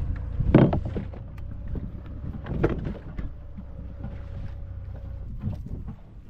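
Wind buffeting the microphone over sea water sloshing against a small boat's hull, with sharp knocks about half a second in and again just before three seconds.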